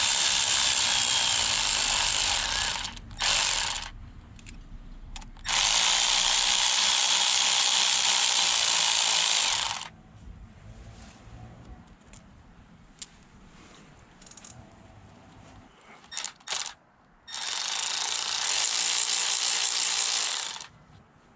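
Powered ratchet or driver spinning out small engine bolts in three runs of a few seconds each, with a short blip about three seconds in, and quieter gaps with a few light clicks of tools and parts between the runs.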